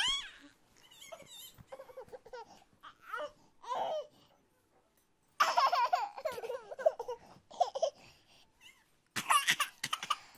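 A baby babbling and laughing in short high bursts, with a pause of about a second midway and a louder stretch of laughter after it.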